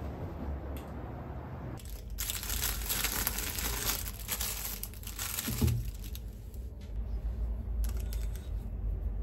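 Thin plastic bag crinkling and rustling in the hands as a bagel is taken out of it, starting about two seconds in and coming back in shorter bursts later, with one dull thump a little past halfway.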